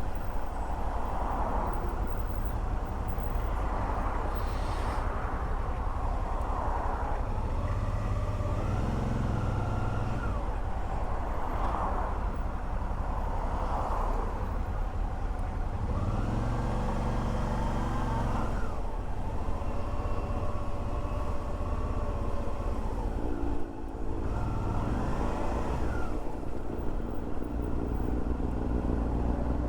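Suzuki V-Strom 650's V-twin engine running on the move, over a steady rumble and wind hiss on the helmet microphone; the engine note swells and glides in pitch three times, as the bike accelerates.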